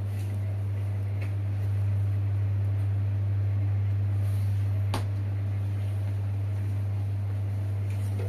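A steady low electrical hum, with one sharp click about five seconds in.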